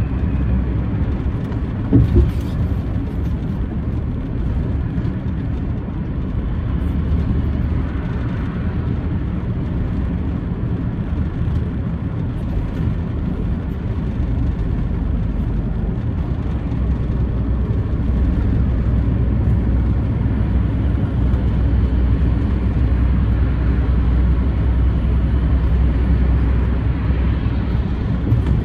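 Steady low rumble of engine and tyre noise from a truck driving at road speed. There is a sharp knock about two seconds in and a lighter one near the end, and a faint high whine during the latter part.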